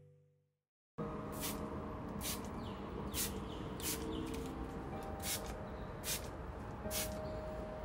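Trigger spray bottle misting a plant: a short, sharp hiss with each squeeze of the trigger, repeating about once a second over steady background noise, starting about a second in.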